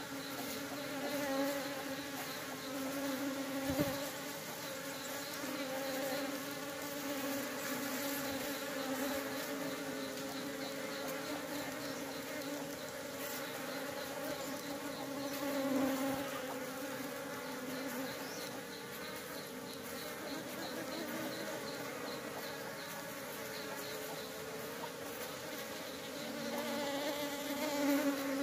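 Many honeybees buzzing together in a steady, layered hum at a hive entrance under attack by ants, swelling now and then as more bees take to the air. A single sharp tap about four seconds in.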